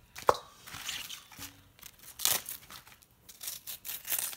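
Knife slicing through the crisp, thick stems of mustard greens held in the hand, a series of short crunchy cuts spread over the few seconds. A sharp click just after the start is the loudest.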